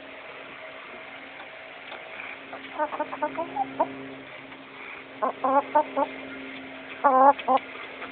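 Chickens clucking in three short runs of quick calls about two seconds apart, the last run near the end the loudest, over a faint steady hum.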